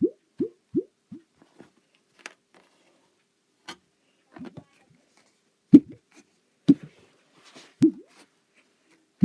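Lego baseplate giving short, hollow pops that rise quickly in pitch: a quick run of about four at the start, a few faint clicks, then three louder pops about a second apart.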